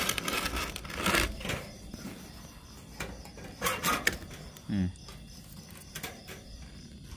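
Handling noise from a phone moved about close against a wire birdcage: several short scrapes, rubs and knocks, with one brief low-pitched sound about two-thirds of the way through.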